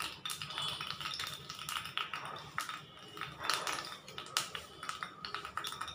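Coconut oil heating in a small aluminium kadai over a gas flame, crackling with irregular small ticks and pops as it gets hot for tempering.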